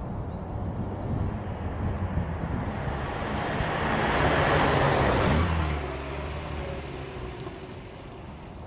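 Toyota Carina TA12's OHV four-cylinder engine and tyres as the car drives past: the sound builds to a peak about halfway through, drops in pitch as it passes, then fades away.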